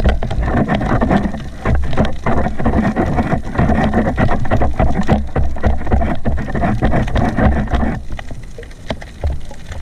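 Underwater noise through an action camera's housing as a spearfisher swims: water rushing and churning past, thick with small clicks and crackles. It eases off near the end.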